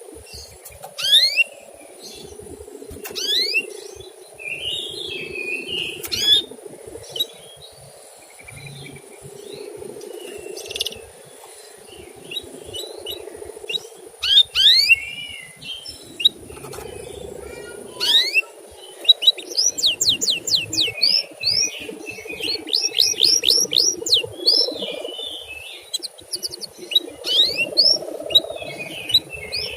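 Male canary chirping and singing: a series of quick rising 'cuit' chirps, with a fast rattling run of notes about two-thirds of the way through, over a steady low hum.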